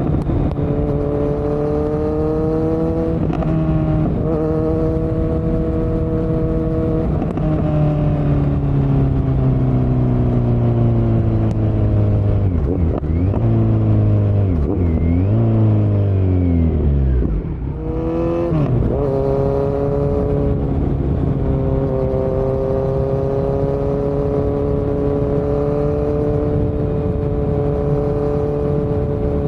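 2018 Kawasaki Z900's inline-four engine through a Yoshimura muffler and Delkevic headers with no dB killer, on the move. The engine note holds fairly steady, then falls away over several seconds and dips and rises a few times. It drops out briefly about two-thirds of the way through, climbs sharply, and settles into a steady cruising drone.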